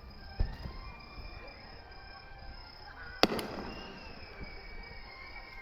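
Fireworks bursting: a low boom about half a second in, then a sharper, louder crack a little past three seconds that rings out afterwards. Crickets chirp steadily underneath.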